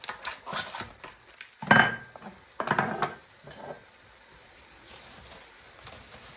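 Kitchen dishes and utensils clattering as they are moved and set down on a worktop. The loudest knock comes just under two seconds in, with a second clatter about a second later, then a soft rustle of a plastic bag near the end.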